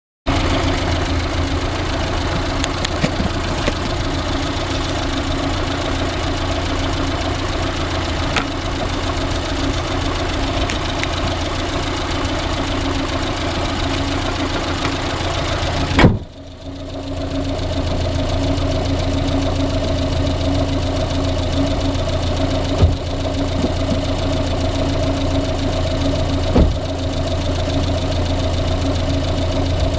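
Car engine idling steadily with a knock that the owner calls engine knocking. A single sharp clack halfway through is followed by a brief dip in the sound, and two smaller clicks come later.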